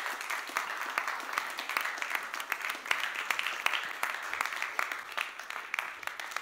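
Audience applauding: many hands clapping steadily, thinning slightly near the end.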